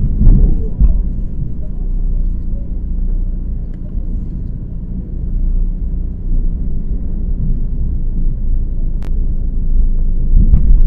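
Tour boat's engine running steadily with a low drone, heard on board, with a single sharp click about nine seconds in.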